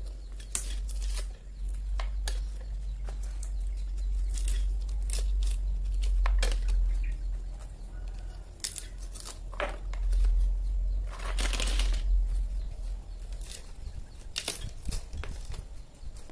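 Hand-cranked areca nut husker at work: irregular sharp cracks and tearing clicks as the metal mechanism is cranked and strips the fibrous husks off the nuts, with a longer rustling burst a little past the middle. A steady low rumble runs underneath.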